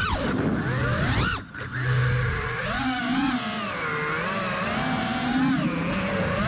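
Brushless motors and 5143 propellers of a 5-inch freestyle FPV quadcopter (T-Motor P2306 1950Kv), heard from the onboard camera. The whine rises and falls steeply with the throttle: a sharp spike at the start, another just over a second in, a brief drop about a second and a half in as the throttle is cut, then a wavering whine through the turns.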